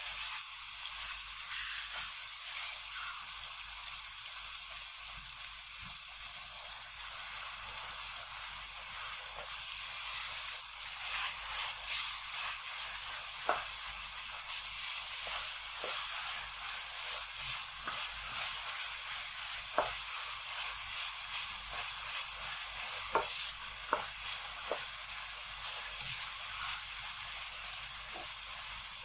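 Minced meat with chopped onion, green chilli and garlic sizzling steadily in oil in a kadhai over a low flame while it is fried down (bhuna). The spoon clicks and scrapes against the pan now and then as it is stirred.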